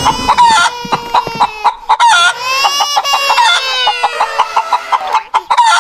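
Chicken clucking in rapid short notes, with one long drawn-out call about two seconds in.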